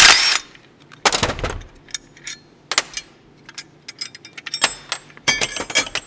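Cordless drill/driver with a socket spinning out small 10 mm bolts from a throttle-pedal bracket in two short runs, the first ending just after the start and the second about a second in. Scattered light clicks follow, then a quick clatter of metal near the end as the bolts and bracket are handled.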